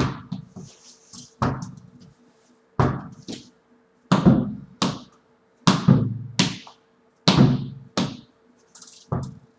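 Tennis ball thrown against a window and bouncing back across a floor mat: about ten sharp knocks, several in pairs less than a second apart.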